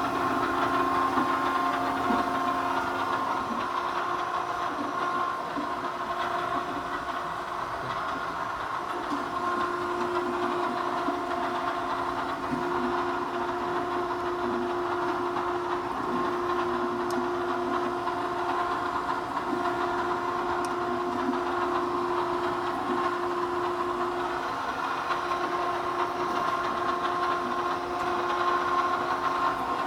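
Okamoto surface grinder running under power, its spindle and table drive making a steady machine hum with several held tones that change pitch a few times.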